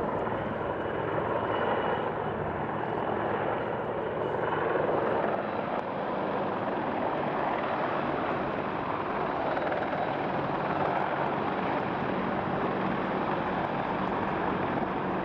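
British Army Apache Mk1 attack helicopter flying past, its rotor and twin Rolls-Royce Turbomeca RTM322 turboshaft engines giving a steady, unbroken drone.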